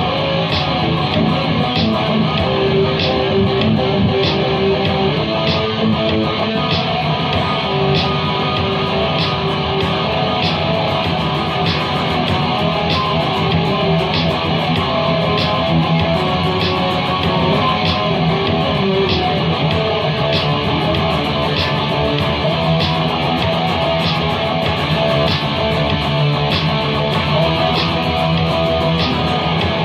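Improvised guitar music, strummed and plucked, playing steadily with a light tick keeping an even pulse about once a second.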